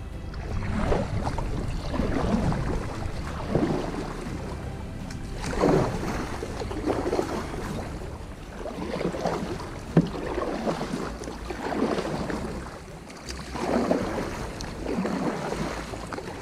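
Kayak paddle strokes through calm water, a swell of splashing and dripping about every one and a half seconds, over a low wind rumble on the microphone. There is one sharp knock near the middle.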